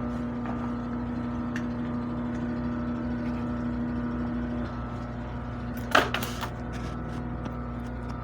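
Steady mechanical hum with several even tones, its strongest tone dropping away a little before a single sharp knock about six seconds in.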